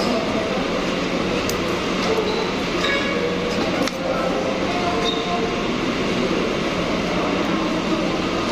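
Busy restaurant din: a steady wash of background chatter and ventilation noise, with a few short clinks of a metal fork and spoon on a plate.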